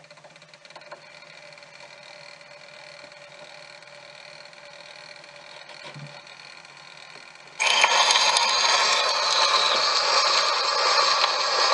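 Edison Diamond Disc playing on an Edison C-150 disc phonograph: a quiet steady surface hiss from the reproducer in the lead-in groove, then, about two-thirds of the way through, a dance band's waltz starts suddenly and much louder through the horn.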